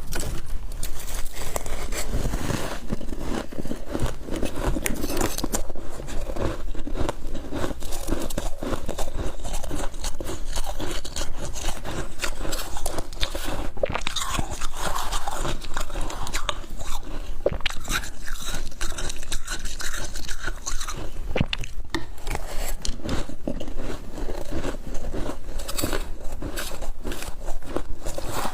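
Soft freezer frost being bitten and chewed close to the microphone, with scraping: a steady run of small, crisp crunches with no pauses.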